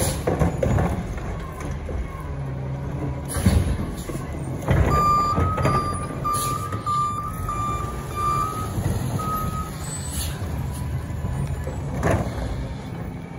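Garbage truck's diesel engine running steadily, with a quick run of high beeps from about five to ten seconds in, its back-up warning alarm. Several short hissing bursts of air, typical of air brakes, come about three and a half seconds in, near five, near ten and near twelve.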